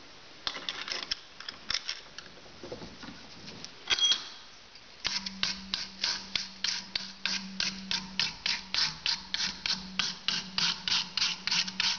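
Clicks and a knock as a screwdriver's shaft is set in the jaws of a bench vise, then, about five seconds in, a wire brush scrubbing back and forth over the old Craftsman screwdriver's plastic handle at about four strokes a second, scouring off the white coating, with a low hum underneath.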